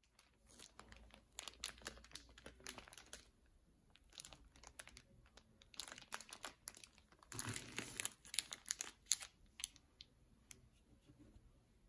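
Plastic packet of pancake mix crinkling in short crackly bursts as hands handle it, loudest a little past halfway and thinning to a few faint crackles near the end.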